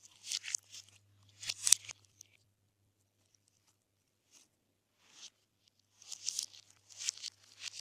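Glossy slime being pressed and stretched by hand, giving clusters of short crackly pops and squelches. They pause for a couple of seconds midway and pick up again near the end.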